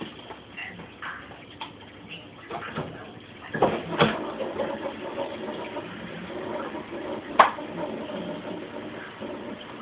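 Kitchen handling noises: a few knocks and clatters in the first half, then one sharp click about seven seconds in, over a faint steady hum.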